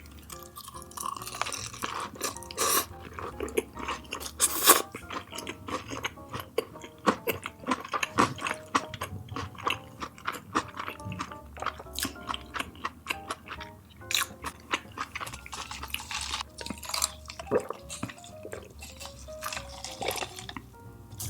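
Close-miked eating: wet chewing and mouth clicks in quick irregular succession, over quiet background music.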